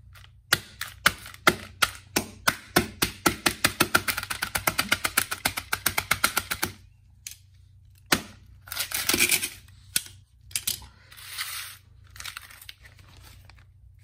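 A metal mallet hammering a plastic DVD case on concrete: a fast run of blows that speeds up to several a second, then stops after about seven seconds. Then a single knock and bouts of plastic crackling and rattling from the broken case.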